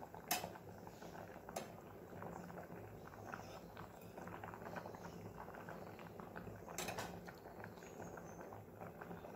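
Rice boiling in water in a stainless steel pot, a faint bubbling over a steady low hum, with a few light clicks.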